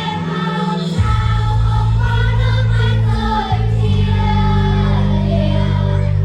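A group of voices singing a Vietnamese song in unison over a loud backing track with a strong bass line.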